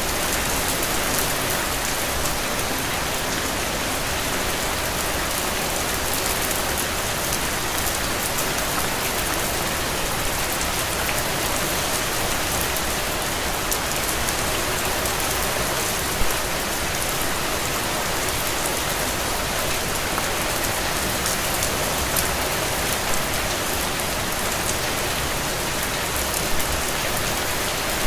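Steady rain falling on a window, a dense even patter of drops with occasional slightly louder drips.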